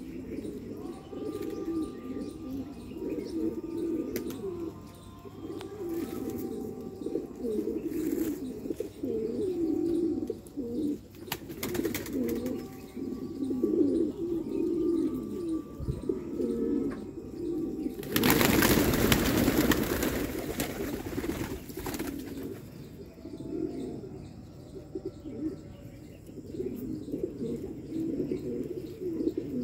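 A flock of domestic fancy pigeons cooing continuously in low, overlapping burbling calls. About two-thirds of the way in, a loud rush of noise lasts about four seconds.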